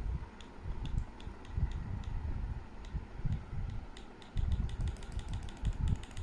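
Laptop keys or buttons clicking at an irregular pace, coming thicker in the last couple of seconds, over rumbling handling noise on the microphone.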